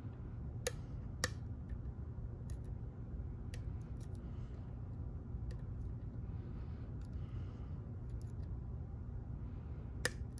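Small sharp clicks and faint scraping of lock picks working the pins of an ASSA Twin Exclusive 5700 lock cylinder, with two sharper clicks near the start and another near the end, over a steady low hum.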